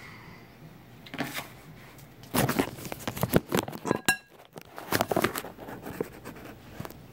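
Scattered knocks, scrapes and rustles of someone moving about and handling things close to the microphone, busiest in the middle.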